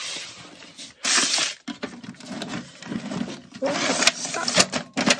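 A stuck toolbox drawer being tugged and pushed, scraping and clattering with sharp knocks as it jams.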